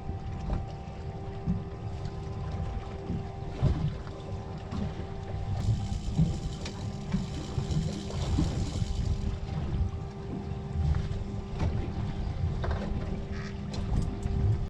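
A boat's motor humming steadily, with wind rumbling on the microphone and a few scattered knocks.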